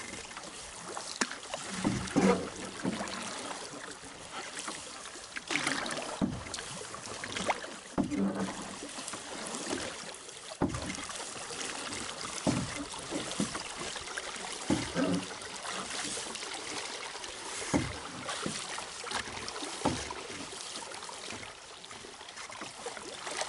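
Canoe paddle strokes: the wooden paddle blade pulls through and lifts out of the water with a splash or light knock about every two to three seconds, over a steady wash of water and wind.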